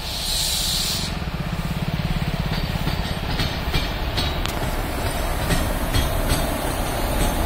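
Twin WAP4 electric locomotives passing close at speed: a short hiss in the first second, then a steady rumble of the running locomotives. Between about two and five seconds in comes a run of clicks as the wheels cross rail joints.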